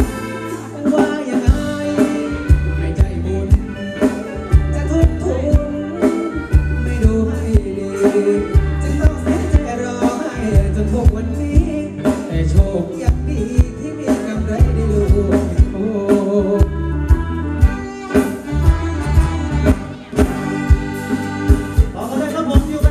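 Live band music over a PA system: singing over electric guitar, bass and a steady drum beat.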